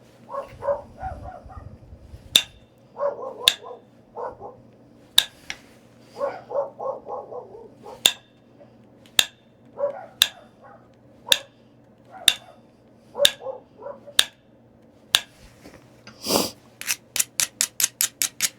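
Sharp stone clicks, about one a second, as flakes are pressed off a small stone point being thinned by flintknapping. Between them a dog whines and yips in short pulsed bursts. Near the end the clicks come in a fast run of about six a second.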